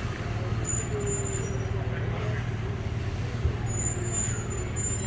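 Heavy truck engine running steadily with a low rumble as the tractor unit slowly hauls an oversize load on a multi-axle trailer, a faint whine dipping slightly in pitch about a second in.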